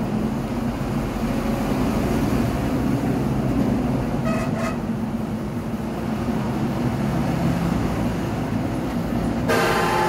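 Steady background traffic rumble with a vehicle horn tooting briefly about halfway through and again, longer and louder, near the end.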